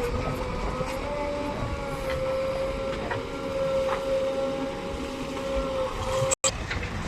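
JCB backhoe loader's diesel engine running under load with a steady whine, rising slightly in pitch about a second and a half in. The sound drops out for an instant near the end.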